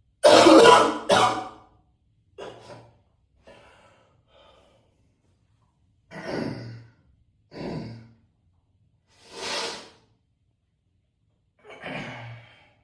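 A man coughing hard twice, then catching his breath with a series of heavy breaths and sighing exhales, in an echoey bathroom.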